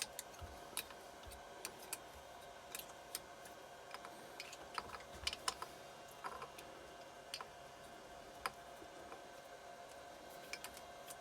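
Faint, irregular clicks and light metallic taps of hand tools and small parts being handled on a Keeway TX125 engine during a strip-down, scattered every second or so over a faint steady hum.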